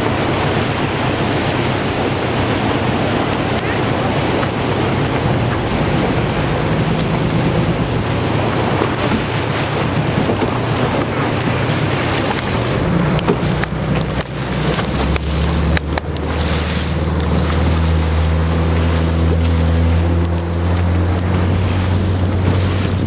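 Small open boat under way across choppy sea: wind buffeting the microphone over the rush and slap of water at the hull. An engine drone comes up much stronger and steadier about fifteen seconds in.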